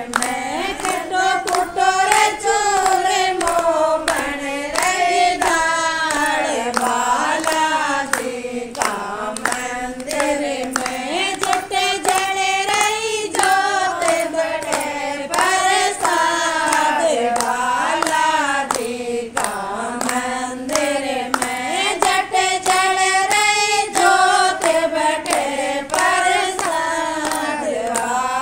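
A devotional Hindu bhajan to Balaji (Hanuman) sung with steady handclaps keeping the beat.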